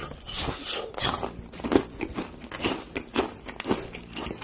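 A caramel apple coated in M&M candies being bitten and chewed, crunching about twice a second.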